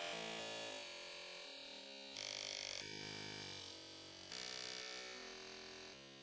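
Faint background music: sustained synthesizer-like chords changing about once a second, slowly fading out.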